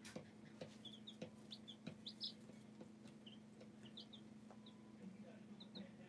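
Baby chicks peeping, short high chirps scattered through, a few in quick pairs, with occasional light taps over a steady low hum.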